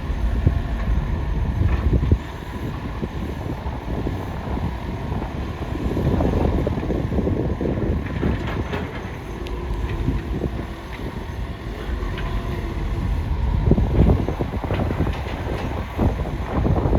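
Excavator working: a steady mechanical rumble with faint whining tones, broken by a few knocks and scrapes.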